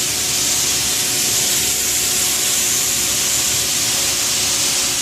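Pressure washer jet spraying water across a glass-tile mosaic panel, a steady loud hiss, washing old glue off the tiles.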